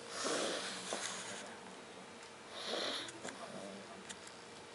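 A sleeping border collie snoring, two slow, noisy breaths about two and a half seconds apart.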